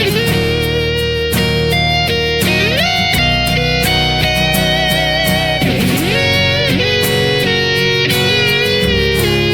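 Music led by an electric guitar playing held notes with vibrato and sliding, bending pitches, including a glide up a few seconds in and a dip and rise about six seconds in, over a steady beat.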